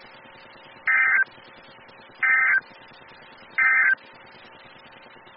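Three short bursts of EAS SAME digital data tones, the end-of-message signal that closes a NOAA Weather Radio alert broadcast. Each burst lasts about a third of a second, and they come just over a second apart over a faint radio hiss.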